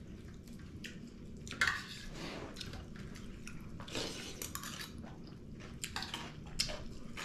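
Metal spoon scraping and clinking against a steel dinner plate in scattered short clicks, with chewing.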